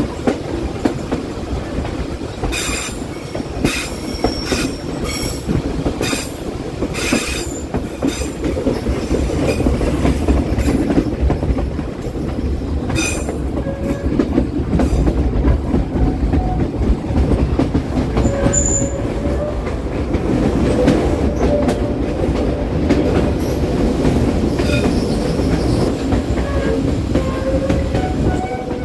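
Passenger train running through tight curves: a steady rumble of the coach and wheels, sharp clacks over rail joints in the first several seconds, and a thin steady wheel squeal through the second half.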